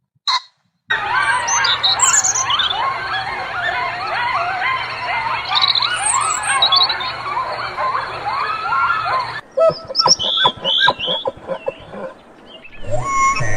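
A dense chorus of many birds chirping and twittering at once, which cuts off abruptly about nine seconds in. A few seconds of rapid clicking and short sharp calls follow.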